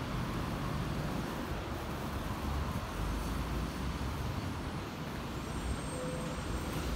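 Steady outdoor background noise: an uneven low rumble of wind on the microphone mixed with road traffic.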